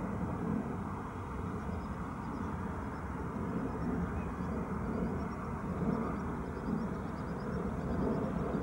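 A steady low rumble of outdoor background noise. From about three and a half seconds in, faint high chirps repeat over it.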